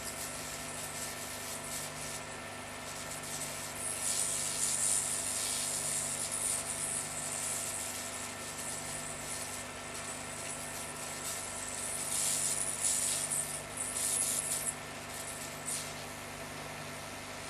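A soldering iron is working a joint while a replacement transistor is soldered in, with flux sizzling in short hissing spells a few seconds apart. A steady electrical hum runs underneath.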